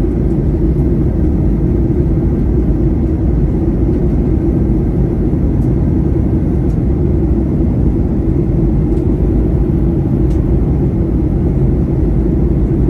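Steady low rumble of a jet airliner in flight, engines and airflow heard from inside the passenger cabin.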